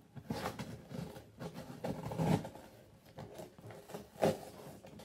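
Scissors cutting and scraping through packing tape on a cardboard shipping box, in irregular rustling strokes. The loudest comes a little past two seconds in, and a sharp click about four seconds in.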